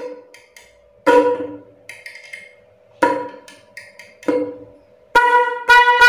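A Bosch Evolution snail-type fanfare horn blown in five short honks by momentary touches of a test lead. Each honk starts sharply and dies away within about half a second, and the last two come close together near the end. It is powered from a tester lead, not yet fitted to a vehicle, and the demonstrator says it will be louder once installed.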